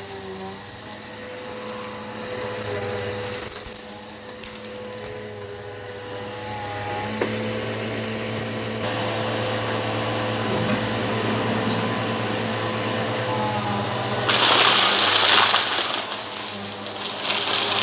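Eureka PowerSpeed vacuum cleaner running steadily with a motor hum while picking up rock salt and lentils. About 14 seconds in, and again just before the end, it swells into louder, harsher rushes as debris is drawn in.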